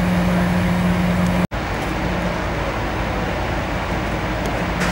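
Fire apparatus engines running steadily, a constant low hum over a wash of noise. The sound drops out for an instant about a second and a half in, then resumes with the hum a little weaker.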